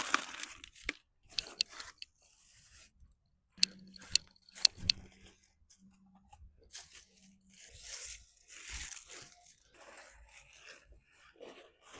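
Irregular crunching and rustling of forest debris being handled, with a cluster of sharp snaps about four to five seconds in.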